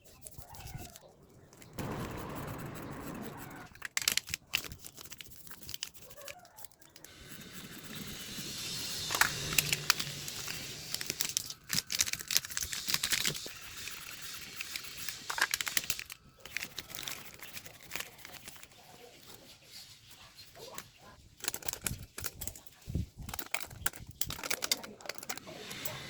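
Hand-work handling noise: irregular crinkling and scraping with scattered sharp clicks, typical of thin can metal and small parts being worked by hand.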